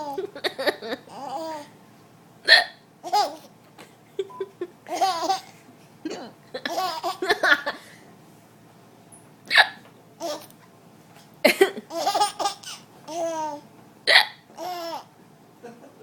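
A person hiccuping repeatedly, sharp hiccups a few seconds apart, with laughter in bursts between and after them.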